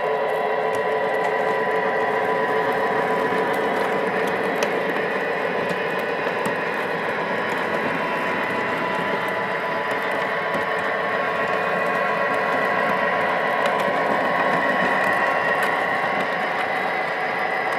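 O-gauge model train passenger cars rolling along the track: a steady metallic clatter of their wheels on the rails, with a steady whine underneath.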